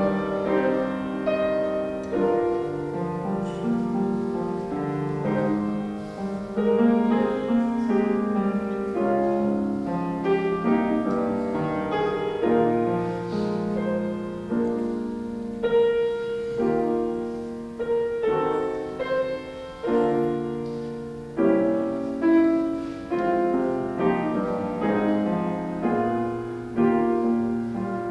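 Piano playing a slow piece of music, notes and chords struck and left to ring out.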